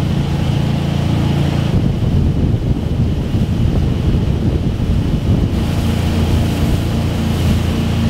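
Wakeboard tow boat's engine running at a steady speed, with wind rushing over the microphone that swamps the engine for a few seconds in the middle.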